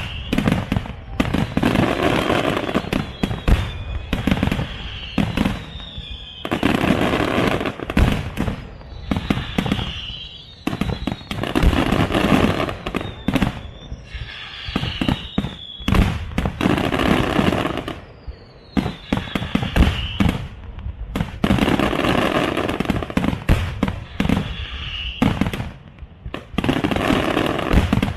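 Fireworks display: waves of bangs and dense crackling every couple of seconds, with whistling shells gliding in pitch over them.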